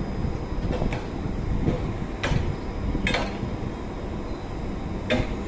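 EN76 electric multiple unit standing at the platform before departure, running with a steady low rumble, with five sharp knocks spread unevenly through it.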